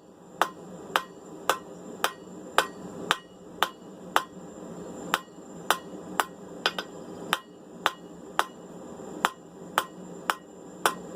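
Blacksmith's hand hammer striking hot steel on an anvil in a steady rhythm, about two ringing blows a second, with lighter taps between some of them, while forging tongs.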